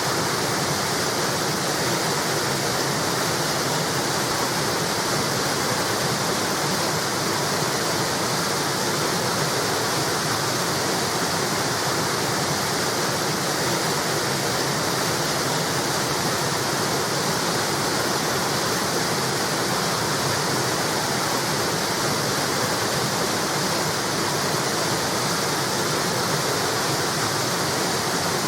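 River water flowing over a small wall, a steady rushing and splashing with no pauses.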